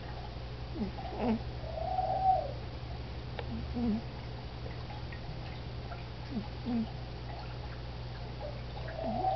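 Sleeping pug snoring: short squeaky whistles and one longer, wavering whistle about two seconds in, coming with its breaths every few seconds over a steady low hum.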